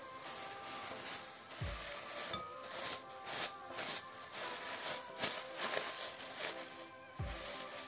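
Thin plastic bag crinkling in short bursts, loudest in the middle, as it is wrapped around a ball of dough, over background music with a few deep thumps.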